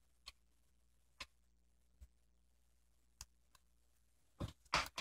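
A few faint scattered clicks, then two louder sharp snips near the end as scissors cut through a strip of rhinestone mesh.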